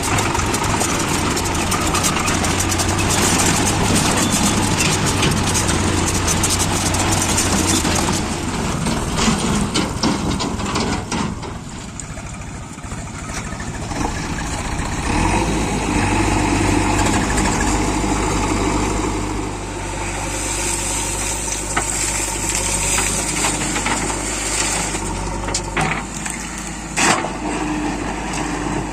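Diesel engine of a JCB 3DX backhoe loader running steadily as it loads sand, louder and noisier over the first several seconds. A few sharp knocks sound about a third of the way in and again near the end.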